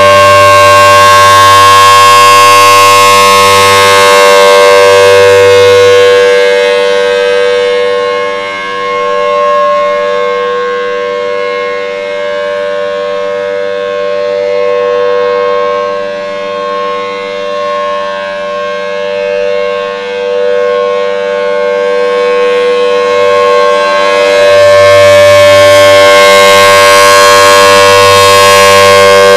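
Federal Signal Thunderbolt 1000T outdoor warning siren sounding a steady full-alert tone at full power, a chord of held pitches with no rise or fall. It is loudest at first, fades and wavers through the middle as its rotating head turns away, and swells back to full strength near the end.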